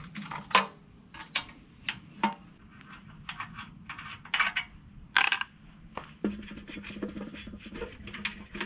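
Steel combination wrench clinking and ticking against bolts and the sheet-metal fuel tank of a small pressure-washer engine while the tank is unbolted: irregular sharp metallic clicks, the loudest about half a second in and about five seconds in. A faint steady low hum comes in about six seconds in.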